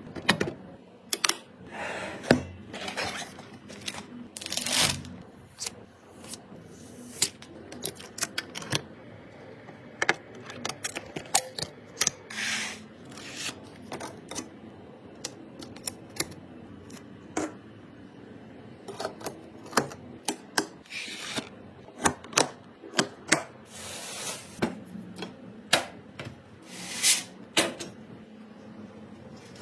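Computer parts being handled and fitted during a PC build: irregular clicks, taps and small knocks, with a few longer scraping or rustling sounds in between.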